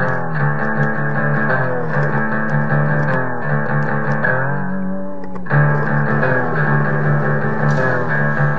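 Background music with pitched notes that slide down in pitch every second or so, and a brief break about five seconds in before it picks up again.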